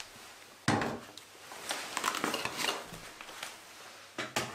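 A full-frame DSLR and lenses being lifted out of a camera backpack's padded nylon compartments: a knock about a second in, then rustling of fabric and foam dividers with small knocks, and a few sharp clicks near the end.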